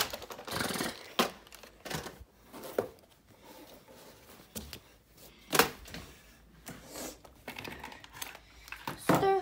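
Handling noise as objects are picked up and moved around: rustling with scattered clicks and knocks, the loudest knock about five and a half seconds in.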